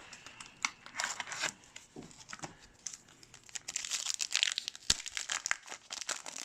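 Plastic wrapper of a trading card pack crinkling and being torn open by hand: a run of irregular sharp crackles, densest in the second half.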